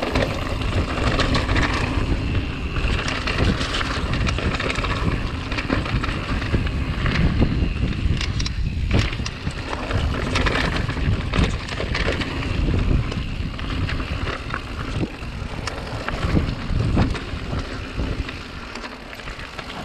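Mountain bike descending a rocky trail at speed: tyres crunching over loose stones and gravel, with frequent sharp knocks and rattles from the bike, and wind buffeting the microphone.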